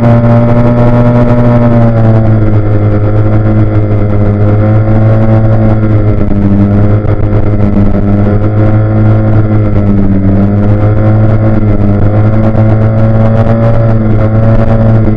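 Car engine running steadily at a fairly constant speed, a loud droning note. Its pitch drops a little about two seconds in, then wavers slightly up and down.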